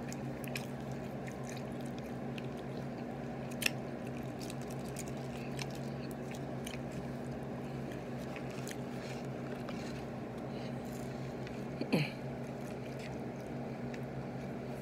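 A person chewing chicken nuggets, with a few sharp clicks, over a steady low hum.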